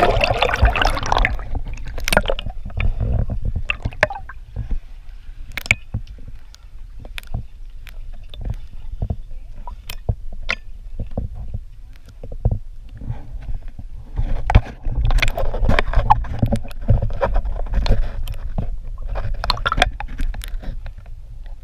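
Water sloshing and splashing around a swimmer, with scattered sharp clicks over a steady low rumble; the splashing is heaviest at the start and again about two-thirds of the way in.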